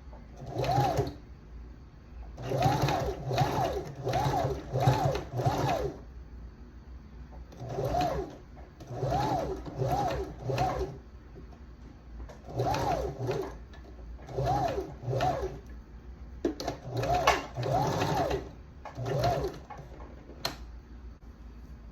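Janome electric sewing machine stitching a hair weft onto a wig cap in short stop-start runs, more than a dozen in all, each speeding up and winding down again. A couple of sharp clicks fall between the later runs.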